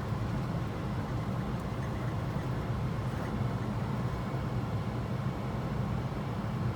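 Steady low rumble inside an Airbus A320 flight simulator cockpit: the simulated engine and airflow noise of the jet on final approach.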